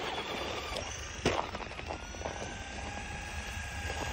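Radio-controlled truck's electric motor whining as it drives through snow, its pitch slowly rising, over a rough noise of the tyres churning snow. A sharp knock just over a second in.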